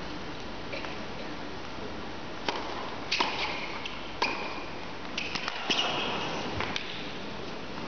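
Tennis rally: sharp pings of ball on racket strings and court, roughly one a second, starting about two and a half seconds in and ringing in a large indoor hall. Before the first hit there is only a steady hush of crowd and room noise.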